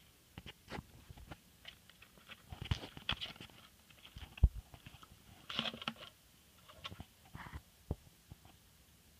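Irregular light taps, clicks and scratches of a kitten's claws on a wooden magazine rack with a wicker handle as it clambers about, with one sharper knock about four and a half seconds in.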